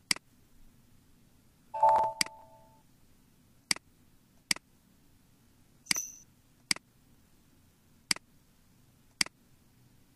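Computer mouse clicks, single sharp clicks every second or so, about eight in all. About two seconds in there is a short steady two-tone beep lasting under a second.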